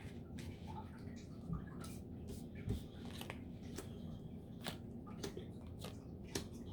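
Tarot cards being handled and drawn from the deck: a scatter of light, crisp card flicks and snaps, faint against room tone.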